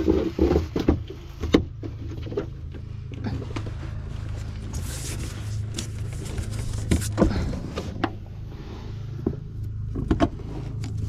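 An engine idling steadily, with scattered short clicks and knocks over it.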